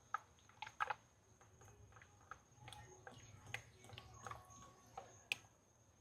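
Motor oil being poured from a jug through a funnel into the engine, heard faintly as irregular glugs and small ticks.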